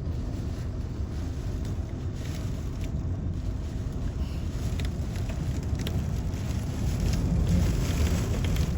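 Typhoon-force wind buffeting the microphone: a steady low rumble that swells around seven to eight seconds in, with a few faint ticks.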